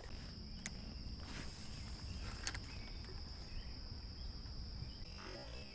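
Steady high-pitched insect drone, with a low rumble underneath and two faint clicks, one about a second in and one near the middle.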